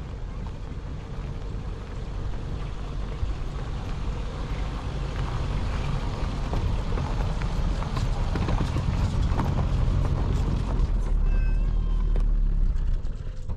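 Peugeot sedan driving slowly over rocky ground: a low engine and tyre rumble with stones crunching and popping under the tyres, growing louder as it approaches and dropping away sharply near the end.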